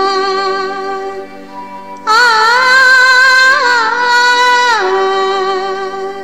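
Music: a voice singing long held notes that slide between pitches over a steady drone, with a louder, higher phrase in the middle.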